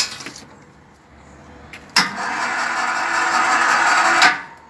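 Electric balcony winch motor starting with a click about two seconds in, running steadily as it hoists a loaded wire basket up on its cable, and cutting off sharply a little over two seconds later.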